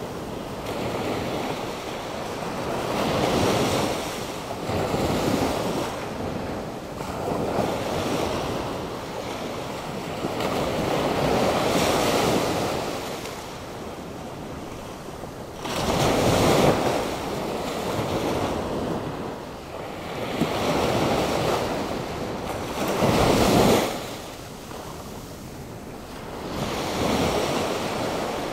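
Atlantic Ocean surf breaking and washing up on a beach, in swells every few seconds, with wind. The two loudest waves crash about halfway through and a few seconds before the end. The surf is stirred up by a passing hurricane.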